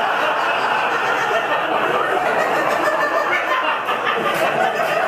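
Comedy club audience laughing together, a long steady laugh that fills the pause after a punchline.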